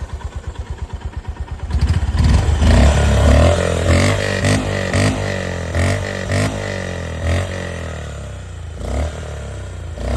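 Honda CB350's single-cylinder engine idling with an even thump, about eight beats a second, then revved about two seconds in and blipped repeatedly with the throttle, the revs rising and falling. The exhaust note is subdued, a 'silent kind of voice' rather than a loud one.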